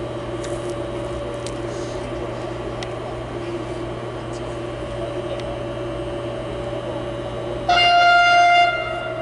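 Train horn sounding one steady single-note blast of about a second, near the end, over a steady hum.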